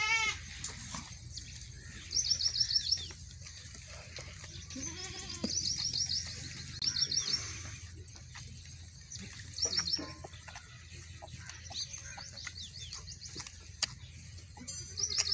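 A goat bleats with a shaky, wavering call right at the start and gives a shorter call about five seconds in. Small birds chirp in quick high runs on and off throughout.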